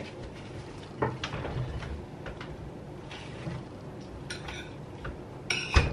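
Kitchen clatter of dishes and cutlery: a few light clinks and knocks, then a louder knock with a ringing clink near the end.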